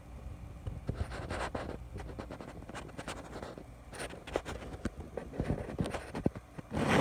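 Irregular scratching and rustling with scattered light clicks as things are handled on a workbench, with a louder rustle near the end.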